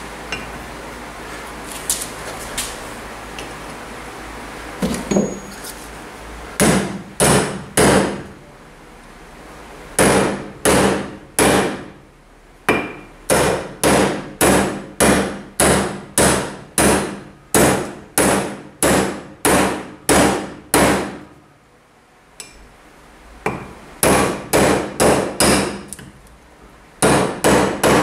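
A steel hammer striking repeatedly to drive a new wheel bearing into a motorcycle's sprocket carrier, each blow sharp and ringing. The blows come a little under two a second, in runs with short pauses, after a few seconds of light clinks as the parts are set up.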